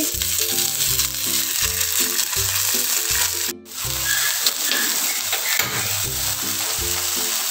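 Chicken and spring-onion yakitori skewers sizzling on a hot ridged grill pan, brushed with oil and sauce, under background music with a steady beat. The sound drops out for an instant a little after halfway.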